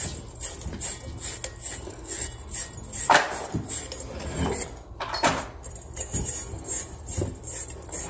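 Small wire fitting brush scrubbing in and out of the solder sockets of a brass Delta shower valve body, a quick rhythmic metallic scratching of about two to three strokes a second. The sockets are being cleaned for soldering copper fittings.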